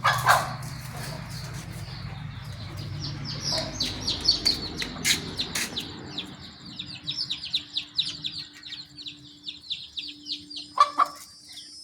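Chicks peeping: a rapid run of short, high, falling peeps that grows denser after the first few seconds, with a brief noisy burst near the start.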